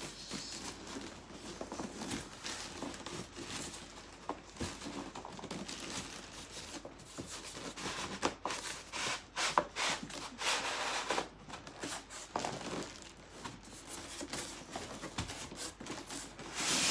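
Plastic wrapping crinkling and cardboard scraping as a boxed foot massager is unpacked by hand: irregular rustles and scrapes, with a louder stretch of rustling about ten seconds in.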